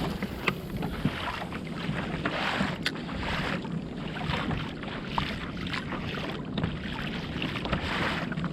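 Water splashing and lapping against a fishing kayak's hull as it moves along, with many small irregular splashes and wind buffeting the microphone.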